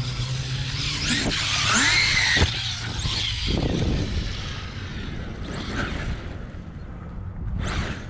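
Large-scale electric RC truck running on 12S: its brushless motor whines, rising and falling as it accelerates and slows, over a steady rumble of tyre noise. A sharp knock comes about two and a half seconds in.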